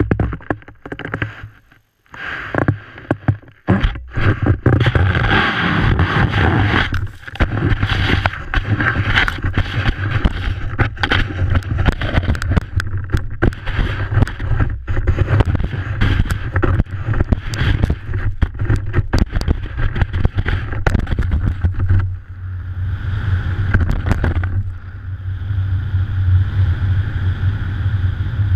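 Wind rumbling over a ski-mounted action camera's microphone and skis scraping and chattering over snow at speed, with many sharp crackles. The first few seconds are quieter, with a few knocks and a short near-quiet gap, before the steady rush sets in about four seconds in.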